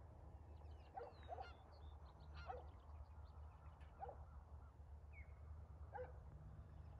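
Faint short animal calls, about five of them a second or two apart, with small birds chirping higher up, over a low steady hum.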